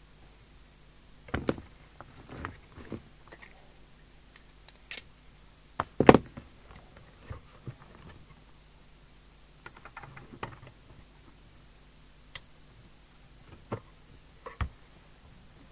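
Irregular clicks, taps and knocks of hands working on a CB radio set's case, the loudest knock about six seconds in, over a faint steady low hum.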